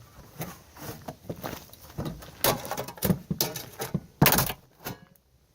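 Irregular knocks, scrapes and clatter of refrigerator door panels being handled and pulled apart by hand. The sharpest knock comes about four seconds in.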